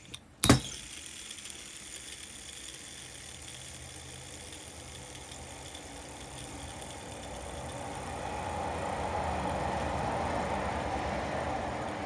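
Abu Garcia Ambassadeur 2500C baitcasting reel, nearly unoiled, being worked by hand: a sharp click about half a second in, then a steady whir of the gears, spool and level-wind worm shaft that grows louder about two-thirds of the way through.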